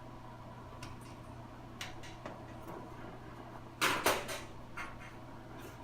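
Small metal hardware and a screwdriver being handled at the dryer's terminal block: scattered light clicks, with a louder brief clatter about two-thirds of the way in, over a steady low hum.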